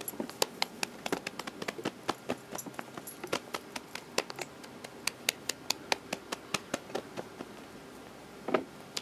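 A rapid, irregular series of short, sharp clicks and taps, about three to five a second, with one louder knock near the end.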